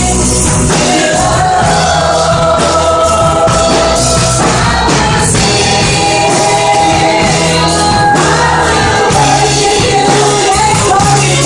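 Worship song: singing over band accompaniment with a steady bass line and drums.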